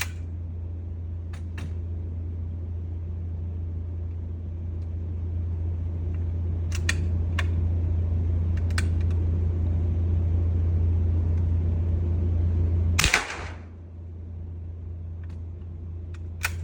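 A vintage Winchester rifle fires once, a single sharp shot with a ringing tail about thirteen seconds in. A few short clicks come before it and another comes near the end, all over a steady low hum.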